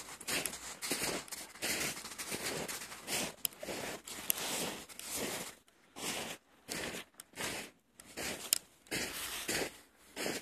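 Snow crunching in a quick run of crunches, about two a second, with a few sharp clicks and short breaks in the second half.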